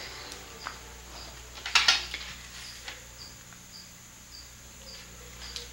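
A cricket chirping steadily, short high chirps about twice a second, over a faint hum. A brief sharp noise about two seconds in, louder than the chirps.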